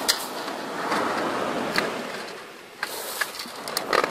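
A few sharp clicks and crinkles from a crushed aluminium drink can handled in the hand, over a steady rushing background.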